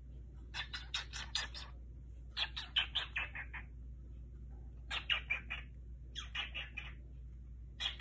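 A cockatiel chirping in quick runs of short, high notes: four bursts of about five to eight chirps each, coming roughly every second and a half.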